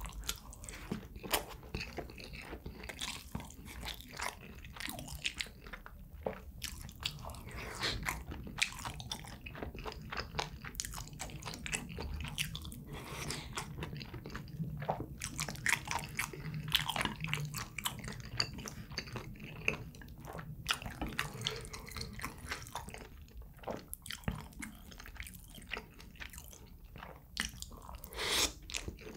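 A person chewing and biting food close to the microphone, with many short crunchy and wet clicks throughout.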